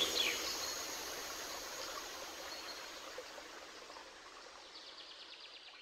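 Soundtrack fading out: a soft hissing nature-style ambience with a short, rapid, high chirping trill near the start and again near the end, dying away toward silence.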